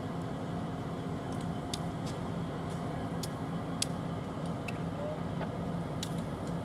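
Union Pacific diesel locomotives running slowly at low throttle, a steady engine hum, with short sharp high clicks now and then.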